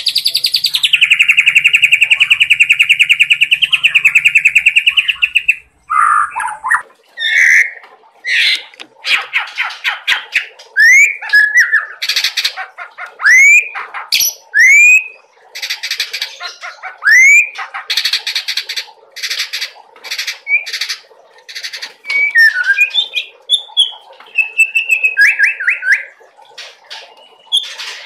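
A juvenile white-rumped shama (murai batu) sings loudly, delivering 'cerucuk' filler phrases. It opens with a fast buzzy trill that drops in pitch about a second in and lasts about six seconds. Then comes a quick run of rising whistles mixed with harsh chattering notes.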